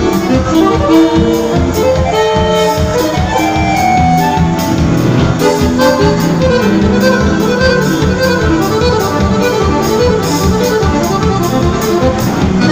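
Piano accordion playing a lively gaúcho dance tune live with a band, over a steady drum beat.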